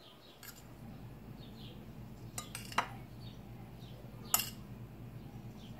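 A metal spoon clinking against glass dishes a few times while spooning and spreading shredded chicken, the sharpest clinks near the middle, over a low steady hum.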